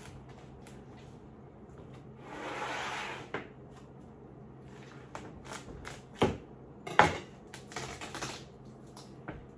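A watermelon being cut open with a kitchen knife on a board: a brief rush of noise, then two sharp knocks about a second apart as the knife goes through, and a few light clicks and taps.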